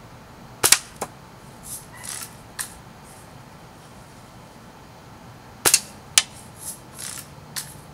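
Two shots from a spring-powered Buck BB gun, about five seconds apart. Each is a sharp snap followed about a third of a second later by a shorter click, then a few fainter rustling noises.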